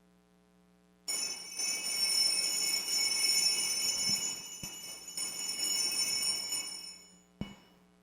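Altar bells (a cluster of small Sanctus bells) shaken and ringing during benediction with the Blessed Sacrament. They start suddenly about a second in, ring on for about six seconds and die away, with a short jingle near the end.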